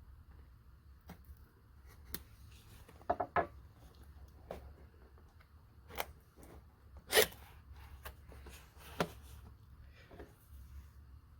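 Cardboard box and packaging being handled and opened by hand: scattered clicks, knocks and rustles, a quick cluster just after three seconds and the loudest knock about seven seconds in, over a low steady hum.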